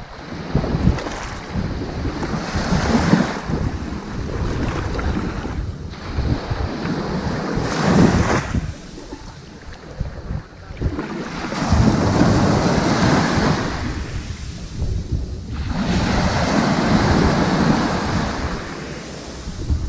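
Ocean waves washing onto a sandy beach, the surf swelling and falling back about every four to five seconds, with a low rumble of wind on the microphone.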